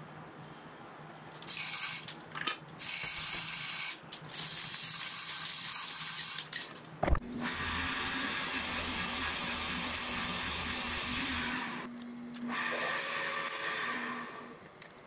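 Several short bursts of hissing, then a click and a milling machine's spindle running steadily as a twist drill bores into an aluminium adapter plate, with a second cutting pass near the end.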